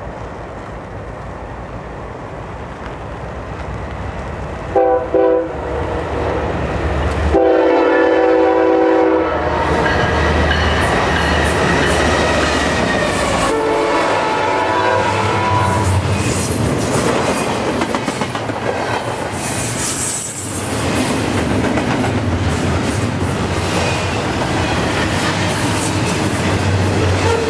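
Freight train diesel locomotives approaching and sounding the air horn: two short toots about five seconds in, a long blast a couple of seconds later, and another, fainter blast around fourteen seconds in. The locomotives then pass and a long string of double-stack container well cars follows, the wheels clattering steadily over the rail.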